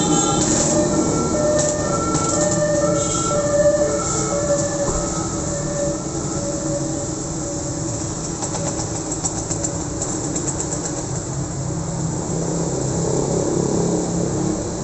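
Busy road traffic: motorcycles, minibuses and cars passing, a steady mix of engine drone and tyre noise. For the first five or six seconds a string of short tones, changing pitch every half second or so, sounds over the traffic.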